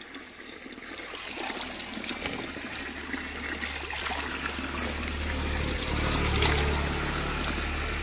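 Mountain spring water pouring from a pipe spout in a steady stream and splashing below, growing louder over the first few seconds.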